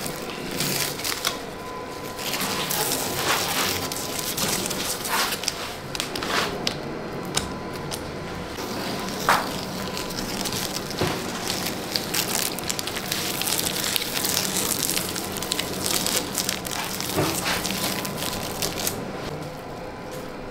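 Scattered clicks and crackling of hands and tools at work as epoxy resin is poured and spread over clock blanks, over a faint steady hum.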